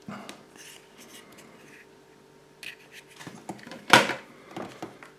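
Hands pulling apart a Kinder Surprise chocolate shell and handling the yellow plastic toy capsule inside: soft cracks and rubbing, then a sharp click about four seconds in, the loudest sound. The capsule is shaken with no rattle from the toy inside.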